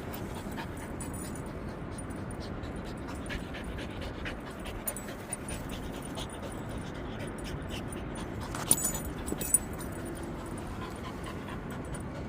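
Border collie panting, over a steady wind rush on the microphone, with a few sharp clicks about three-quarters of the way through.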